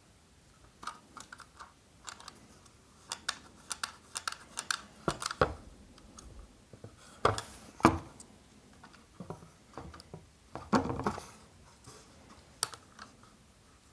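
Irregular light clicks and taps as a clock's hands are pressed and adjusted on the shaft of a small battery clock movement, with the dial under them being handled. A few clicks near the middle and about three quarters of the way through are louder.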